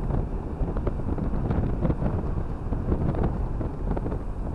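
In-cabin road noise of a Toyota driving on a rough, unpaved mountain road: a steady low rumble from the tyres and engine, with small scattered knocks.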